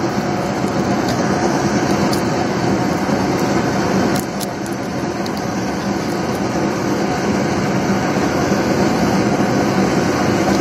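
A steady mechanical hum and hiss, like a running engine or air conditioner, with a few faint clicks in the first half.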